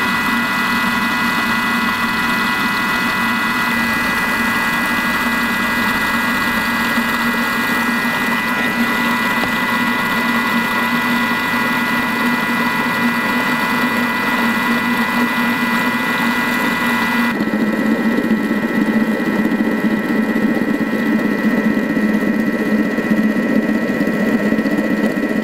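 Thermomix motor running at speed 4 with the butterfly whisk turning in the bowl, beating egg whites stiff while sugar syrup is added: a steady whirring hum with high tones. About two-thirds in, the high hiss drops away and a lower rushing grows.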